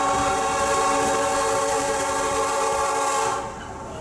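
Train horn sounding a long, steady blast over the noise of the moving train; the blast cuts off suddenly about three seconds in.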